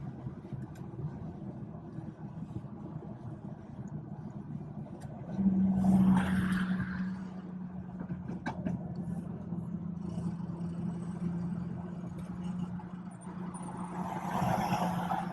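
BMW 440i's B58 turbocharged inline-six and road noise heard from inside the cabin while driving. About five and a half seconds in, the engine drone suddenly gets louder with a brief rush of noise, then holds a steady drone; another rush of noise comes near the end.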